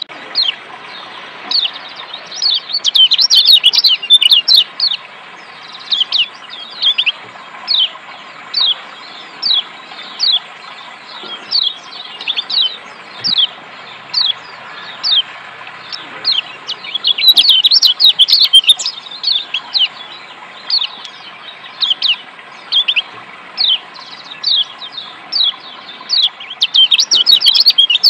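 Lombok yellow white-eye (kecial kuning) giving short, sharp chirping calls, about one a second with rapid flurries of chirps, over a steady rush of running water.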